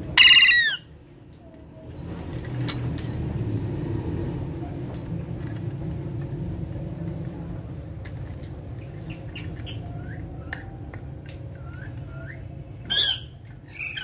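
Alexandrine parakeets calling: one loud harsh screech at the start, a few soft short chirps later, and two more screeches near the end. Scattered light clicks of beaks and claws on the wire cage and steel bowl over a steady low hum.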